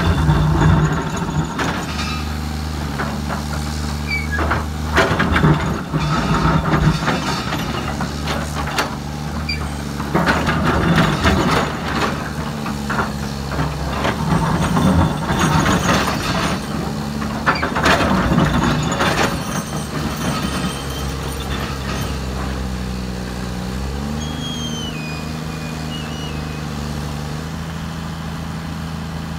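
Samsung SE350LC-2 excavator's replacement diesel engine, run without its engine cover, working under load with its hydraulics. The bucket scrapes and grinds through broken rock in repeated stretches. The engine steps up in pitch about 24 seconds in.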